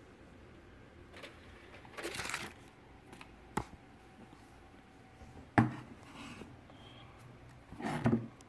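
Handling of a driver CD at the PC's optical drive: brief rustles and several sharp clicks. The loudest is a knock about five and a half seconds in.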